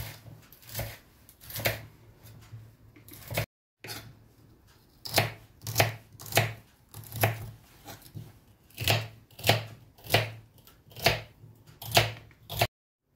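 Kitchen knife slicing celery stalks into small pieces on a wooden cutting board: a steady run of sharp cuts, about one to two a second, each ending in a knock against the board.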